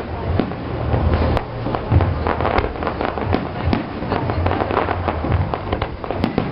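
Fireworks display: many bangs and crackles in quick, irregular succession, over a low steady hum.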